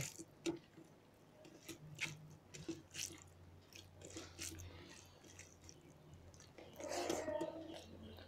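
Quiet eating by hand: chewing and fingers mixing rice and curry on steel plates, heard as scattered soft clicks, with a slightly louder stretch about seven seconds in.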